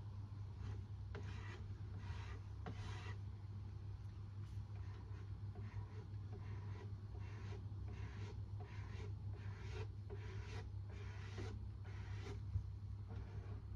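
Repeated rubbing or scraping strokes on a surface, roughly one a second and uneven in strength, over a steady low hum, with one sharp tap near the end.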